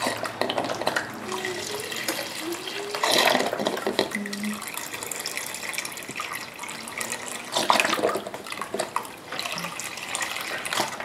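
Beef stock pouring from a carton into a large stainless stockpot of liquid: a steady splashing stream into the pot, swelling louder about three seconds in and again near eight seconds.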